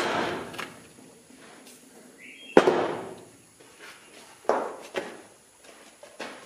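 A sand-casting mold in its flask being knocked and handled on a steel table to shake loose sand out of the cavity: a series of sharp knocks, the loudest about two and a half seconds in.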